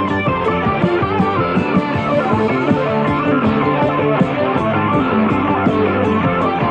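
Rock band playing psychedelic rock: electric guitar over drums, with a steady beat of cymbal strokes.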